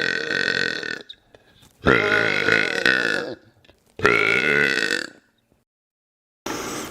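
A man's long, drawn-out burps: one trails off about a second in, then two more follow, each lasting about a second.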